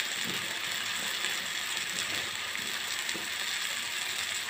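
Chopped onion and tomato sizzling in hot oil in a kadai: a steady, fast crackle as the vegetables lightly fry.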